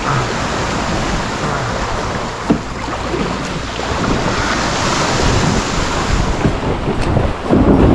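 Sea waves washing onto the shore with wind buffeting the microphone, a steady loud rush that swells a little in the second half. A sharp knock comes about two and a half seconds in, and a heavier thump near the end.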